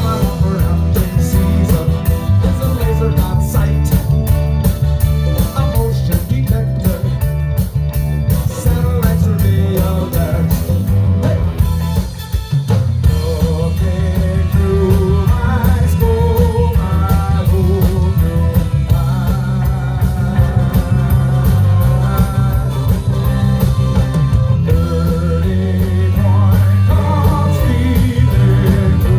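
Reggae band playing live, with a heavy bass line and drums under guitar, keyboard and congas.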